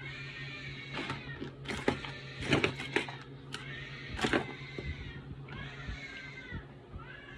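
Young child crying in repeated drawn-out wails, each about a second long, with a few sharp knocks in the middle.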